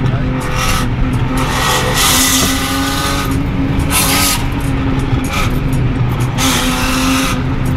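Car engine and road noise inside a moving car's cabin: a steady droning hum, with brief gusts of hiss about two, four and seven seconds in.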